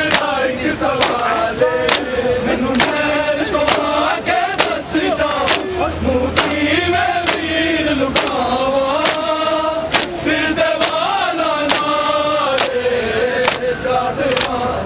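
Male voices chanting a Punjabi noha (mourning lament) together, over rhythmic matam: many bare hands slapping chests in unison, about two sharp slaps a second.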